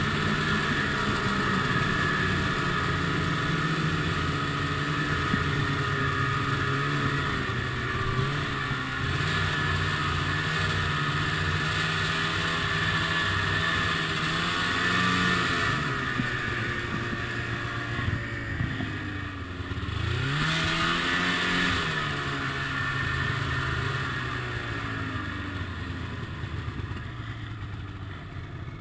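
Ski-Doo MXZ snowmobile's two-stroke engine running under way, its pitch dropping and climbing again about two-thirds of the way through, then growing quieter near the end.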